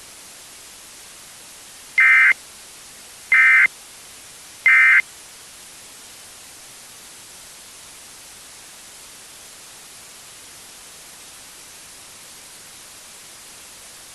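Three short bursts of Emergency Alert System end-of-message data tones (SAME codes), each about a third of a second long and spaced about 1.4 seconds apart. They sound over a steady static hiss that marks the close of the alert.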